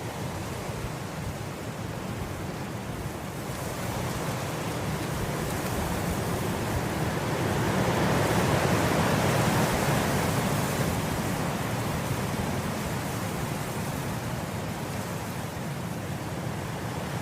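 Wind blowing through grass: a steady rushing that swells into a gust about halfway through, then eases off.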